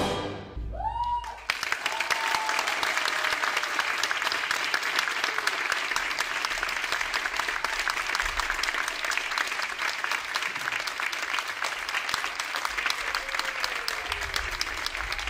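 A theatre audience applauding steadily after the last note of the recorded orchestral music dies away, with a few voices calling out over the clapping.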